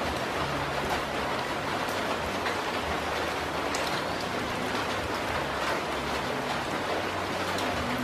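Steady rain falling on foliage, a constant hiss with scattered individual drops, and a faint low hum underneath.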